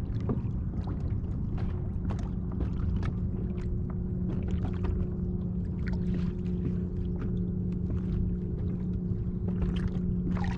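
Small waves lapping and slapping against a kayak's hull in quick, irregular splashes, over a steady low hum.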